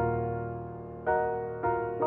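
Solo piano background music: three chords struck in turn, each left to ring and fade.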